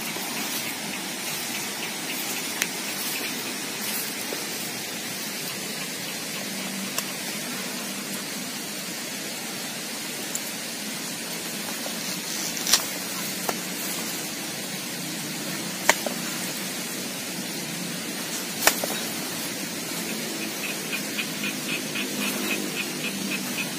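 Steady outdoor hiss, with a few sharp snaps several seconds apart as galangal stems are broken off at the base of the plant, and a quick run of light ticks near the end.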